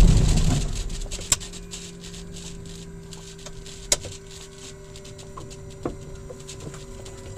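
Jabiru LSA-55 light aircraft engine being shut down after taxiing in, running down and falling quiet over about a second and a half. A faint steady hum and three sharp clicks follow in the cockpit.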